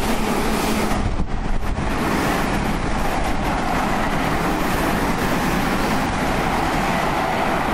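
Seibu 2000-series and 30000-series ten-car electric express trains passing through a station at speed without stopping, one after the other: a steady loud rush of wheels on rails and running gear, with a brief dip about a second and a half in.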